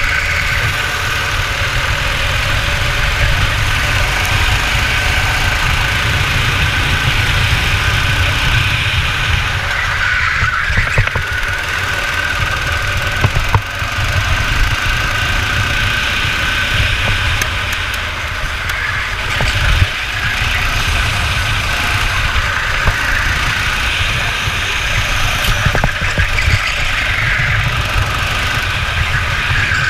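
Go-kart engine running at racing speed, heard from onboard the kart, over a steady low rumble.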